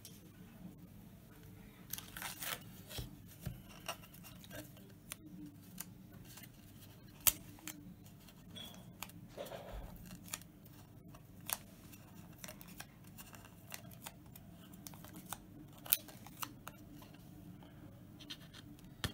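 Masking tape being picked and peeled off a painted routed sign by hand: scattered small clicks, scratches and crinkles of the brittle tape coming away, with a sharper tick every few seconds and a couple of short rustles.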